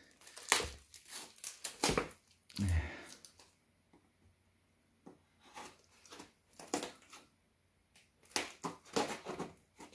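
Knife blade cutting through a cardboard record mailer: short, irregular strokes of scraping and tearing cardboard, with two brief pauses.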